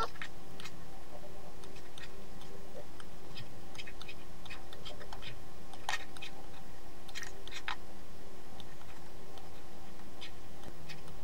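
Computer mouse button clicking at uneven intervals, pressed and released to drag and drop items, over a steady background hum.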